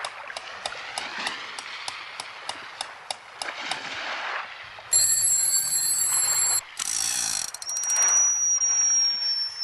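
Cartoon sound effects: steady clicking about three times a second over a soft whooshing, then a loud steady ringing for about a second and a half, and near the end a long high whistle that slowly falls in pitch.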